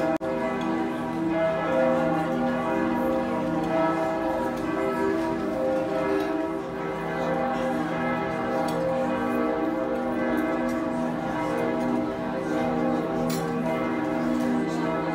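Cologne Cathedral's bells ringing together in a full peal: many overlapping ringing tones in a dense, continuous wash.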